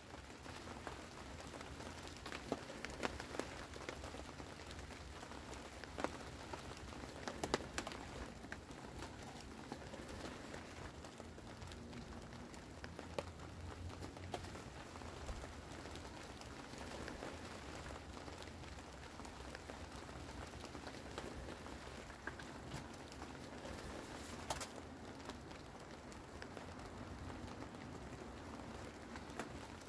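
Steady rain pattering on a poly tarp overhead, with a few sharp knocks from concrete blocks being set on the wall.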